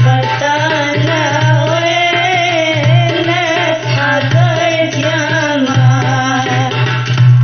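Tunisian wedding music: a wavering, ornamented melody line over a steady drum rhythm with a pulsing low bass.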